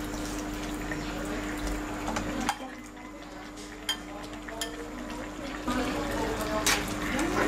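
A metal ladle and spatula scraping and clinking against a steel wok and a bowl as saucy fish and greens are scooped out, with several sharp clinks over a steady hum.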